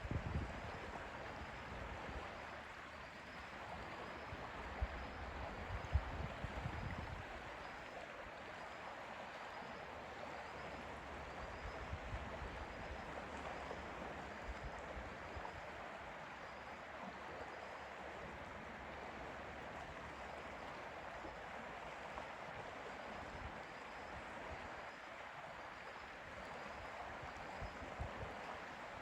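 Lake water lapping and trickling at the shore, a steady gentle wash of water. For about the first seven seconds, low rumbles of wind buffet the microphone.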